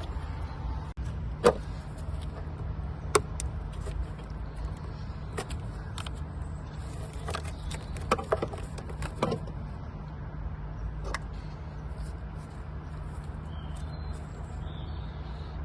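A series of sharp clicks and knocks, spaced irregularly and loudest about one and a half seconds in, over a steady low hum.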